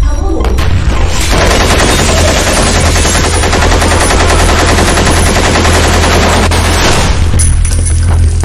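Rapid automatic gunfire, a dense rattle of many shots over a deep low rumble, starting suddenly and thinning out about seven seconds in.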